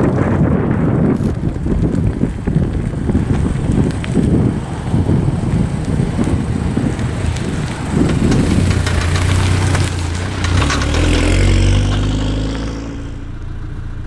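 Wind buffeting the microphone, then the VW Golf R's turbocharged four-cylinder engine as the car drives up and passes close by. The engine note grows loud from about eight seconds in, peaks near twelve seconds, and falls away near the end.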